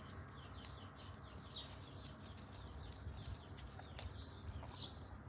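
Small birds chirping faintly in the background over a low rumble, with one sharp click about four seconds in.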